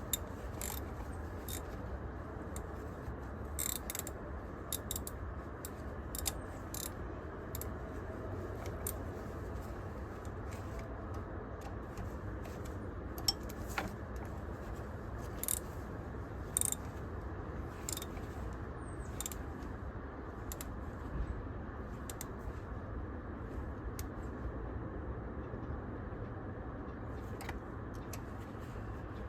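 Scattered light metal clicks and clinks from hand tools, coming at irregular intervals over a steady low hum.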